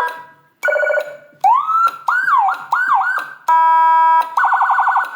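Electronic Whelen-style siren module stepping through its tones in short bursts: a brief steady chord, then four quick wails that sweep up and fall back, a steady horn-like tone, and a fast warble near the end.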